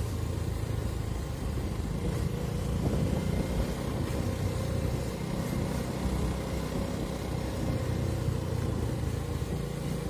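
Engine of a motor vehicle running while driving along a street, a steady low hum.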